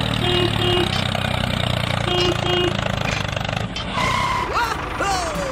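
Tractor engine running steadily, with two quick beeps heard twice over. About four seconds in the engine stops and a few whistling glides that rise and fall follow.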